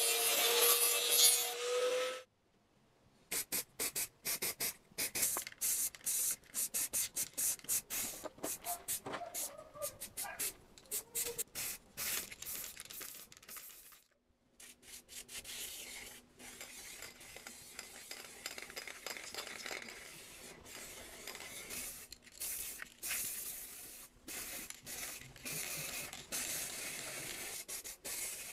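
An angle grinder runs against the steel frame for about two seconds and cuts off suddenly. A long run of quick rubbing and scraping strokes follows. After a short pause about halfway through, an aerosol paint can hisses in repeated bursts as it sprays the steel.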